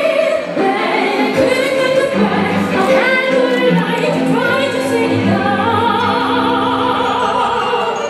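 A soprano singing in operatic style with vibrato into a handheld microphone, over an orchestral accompaniment with strings.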